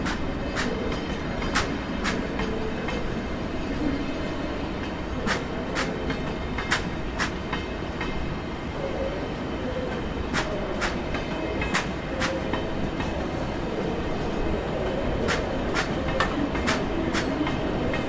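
A train rolling along the tracks with a steady rumble, its wheels giving sharp irregular clicks over rail joints and points.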